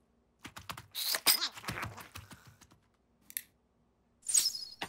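Cartoon sound effects: a quick run of clicks and clatters about half a second in, then a short bright swish near the end.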